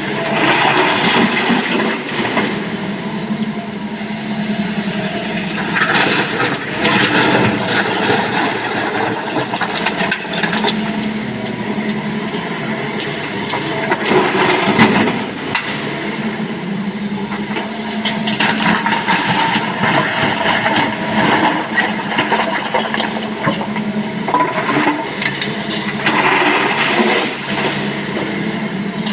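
Diesel engine of a SANY SY225 hydraulic excavator running steadily under load while loading stone, with louder rattling surges every five to seven seconds.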